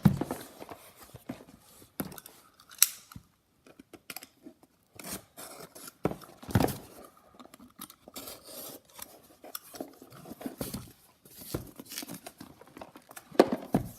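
A cardboard shipping box being cut and torn open: irregular snips, scrapes and tearing of packing tape and cardboard, with a few sharp knocks.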